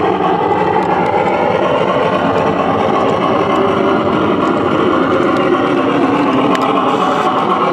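Garden railway train rolling along the track, heard from the camera car: a steady rumbling clatter of the model's wheels on the rails, with a few faint clicks.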